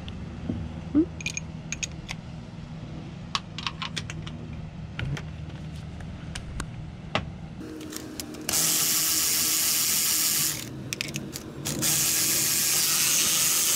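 Cordless electric ratchet running in two steady bursts of about two seconds each in the second half, spinning out bolts on the Yamaha TR-1 engine; before that, light clicks and clinks of hand tools and an extension on the engine.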